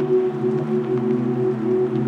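Slow ambient music of held low tones that swell gently, with a faint steady hiss of rain underneath.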